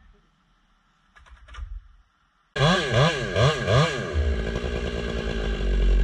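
A chainsaw starts loud and sudden about two and a half seconds in. It is revved up and down four times in quick succession, then held at a steady high speed.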